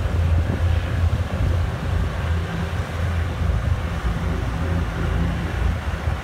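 Low, steady boat engine drone with wind buffeting the microphone.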